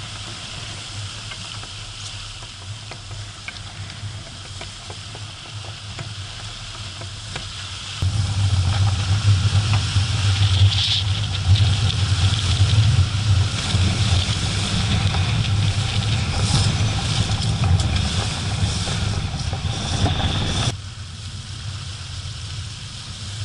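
Water rushing and hissing along the hull of a Dehler 36 CWS sailing yacht under sail in strong wind, with wind rumbling on the microphone. About a third of the way in, a louder low rumble with brighter spray hiss comes in suddenly, and it cuts off abruptly shortly before the end.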